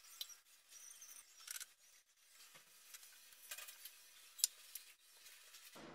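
Sheets of filo pastry rustling and crinkling faintly as they are laid and smoothed into a glass baking dish, with one sharp tick about four and a half seconds in.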